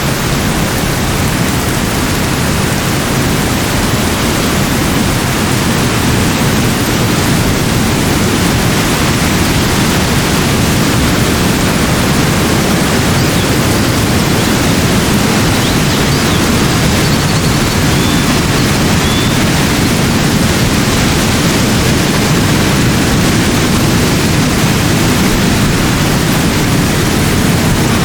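Heavy rain falling in a steady, dense rush. A few faint high chirps come through about two-thirds of the way in.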